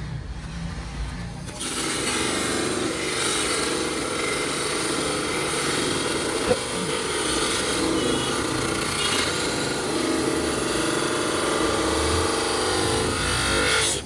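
Electric buffing motor running steadily, its spinning wheel pressed against the edge of a plastic car tail-light lens to polish it. The steady whir starts about a second and a half in.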